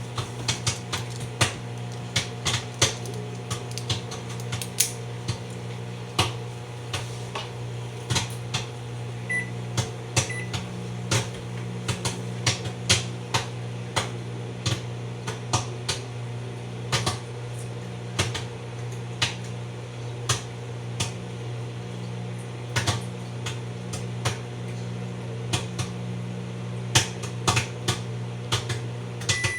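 Microwave oven running with a steady hum while popcorn pops inside it: frequent, irregular sharp pops, several a second at times.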